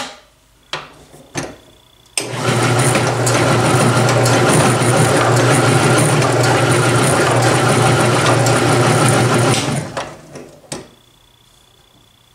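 Small bench drill press driving a Vortex Ball Roller, spinning a cast wheel-weight lead round ball inside it for about seven and a half seconds. It is a steady motor hum over rough rolling noise, then a short spin-down. A few clicks come before it starts and one after it stops, as the fixture is handled.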